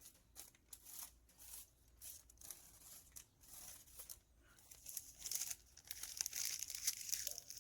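Paper rustling and crinkling in irregular scratchy bursts, growing louder and busier in the second half.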